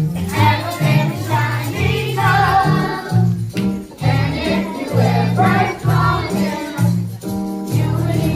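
Gospel choir singing a Christmas song with band accompaniment, over a bass line that moves in short held notes.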